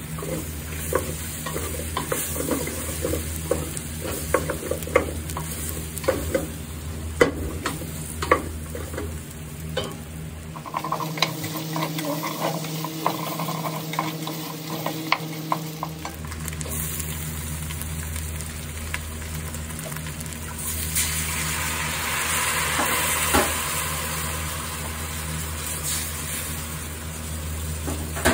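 Wooden spatula stirring and clicking against a stainless steel pot of browning beef and vegetables dusted with flour, with frying sizzle underneath. The sizzling grows louder for a few seconds about two-thirds of the way through.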